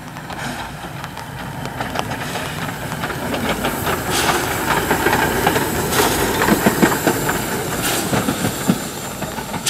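Metre-gauge steam tank locomotive passing close by, its steam hissing over the noise of the running train, getting louder as it draws near.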